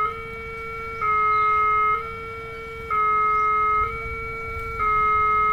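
Railway level-crossing alarm sounding its unusual electronic two-note tone: two close notes take turns about once a second, one louder than the other.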